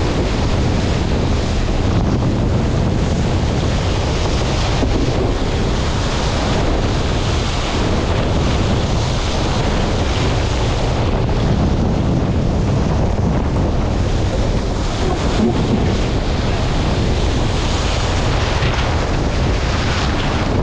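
Strong wind buffeting the microphone over the steady rush of rough sea and water streaming past a J/99 sailboat's hull in about 25 knots of breeze.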